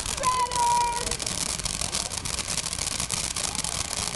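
Consumer fireworks crackling, a dense run of rapid small pops. A brief steady pitched tone sounds over them in the first second.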